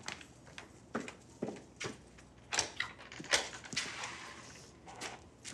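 Footsteps on a hard floor, a sharp step about every half second, with a door opening around the middle.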